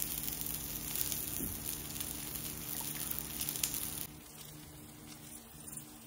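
Batter frying in oil in a kuzhipaniyaram pan, a steady crackling sizzle over a faint low hum, which cuts off abruptly about four seconds in.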